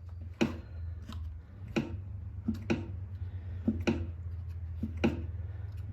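PowerSmart 170cc OHV lawnmower engine being turned over by hand, giving a string of irregular sharp clunks from inside. The clunking is the sign of something broken internally, which the owner suspects is a failed wrist pin or connecting rod or a shot crankshaft.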